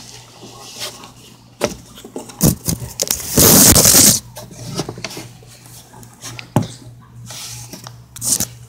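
Handling noise from a handheld camera during a climb: scrapes and knocks as it rubs and bumps against hands and clothing, with a loud rustle about three and a half seconds in.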